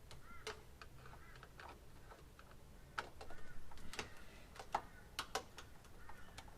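Scattered light clicks and taps of small parts and hand tools being handled on a car door, a few louder ones about three and four seconds in. Faint short bird chirps are in the background.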